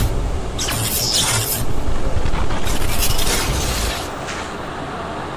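Sound effects of an animated channel-logo intro: a few rushing noise bursts over a low rumble that stops about four seconds in, followed by a quieter fading tail.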